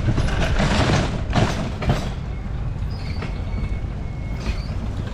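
Cycle rickshaw riding along a paved street: a steady low rumble with the rattle and clatter of the rickshaw, heaviest in the first two seconds.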